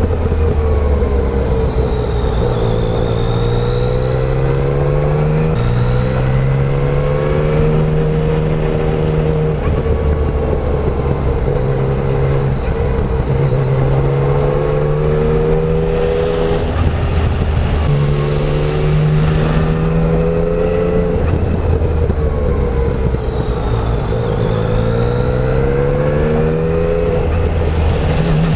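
Yamaha Tracer 900's three-cylinder engine on its stock exhaust under way: the engine note rises and falls in pitch again and again as the throttle is opened and rolled off, with a few sudden jumps in pitch at gear changes.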